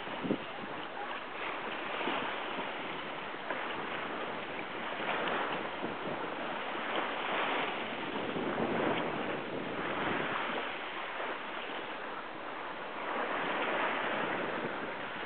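Water rushing and splashing along the hull of an Albin Vega sailing yacht under way through ocean waves, with wind; the rush swells and eases every few seconds as the boat meets the waves.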